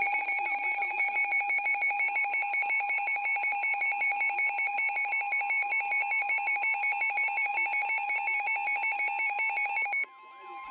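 Weather radio receivers sounding their alert alarm, a rapid high-pitched warble, with the steady 1050 Hz NOAA Weather Radio warning tone joining about two seconds in: the signal that a warning is being broadcast. The warble cuts off abruptly near the end, leaving the steady tone alone briefly.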